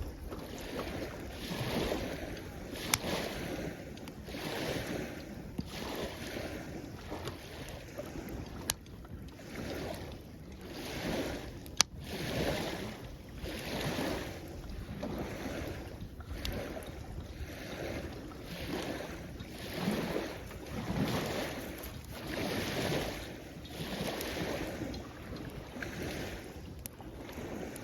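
Small waves washing on the shore in repeated surges, about one a second. Now and then a sharp pop from the wood fire crackling; the loudest comes about halfway through.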